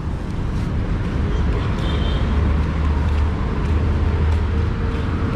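Steady road traffic noise, a continuous low rumble of passing vehicles.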